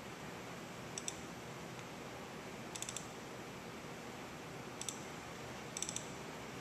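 Computer mouse button clicking in quick pairs and short clusters, four times a second or two apart, over a steady hiss. The pairs are double-clicks opening folders and a file.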